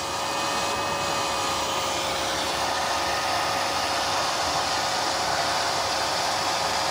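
BWD5-40 stainless steel variable-speed booster pump running at about 5.5 bar with water rushing through the test pipework: a steady, higher-pitched hum over a rushing hiss. It grows a little louder in the first half second as the flow opens from one shower's worth to two and the drive speeds the pump up to about 1.1 kW.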